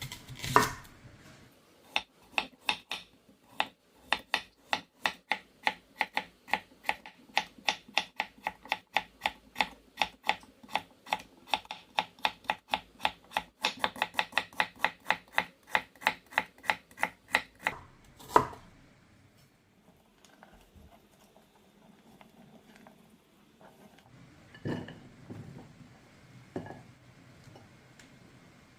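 Kitchen knife chopping vegetables on a cutting board: a long run of quick, even strokes, about four a second. It is followed by one louder knock and, near the end, a few softer knocks.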